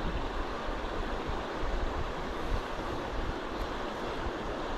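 Steady rush of river water flowing through a pool, with low wind rumble on the microphone.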